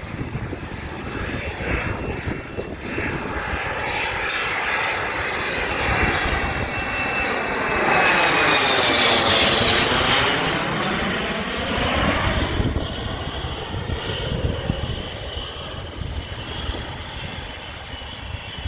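Jet airliner passing close overhead: its engine noise builds, is loudest about nine seconds in with a high whine that falls in pitch as it goes by, then fades away.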